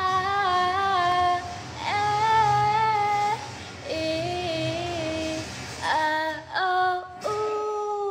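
A woman singing alone in long held notes that waver in pitch, about six phrases with short breaths between them.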